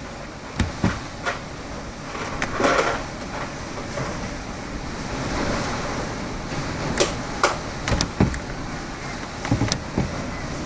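Hurricane wind gusting: a steady rushing noise that swells near the middle, broken by about ten short, sharp pops and knocks.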